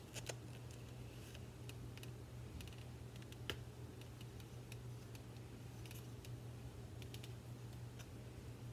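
Scattered faint clicks and rustles of a puzzle cube's plastic packaging being worked open by hand, the sharpest click about three and a half seconds in, over a steady low hum.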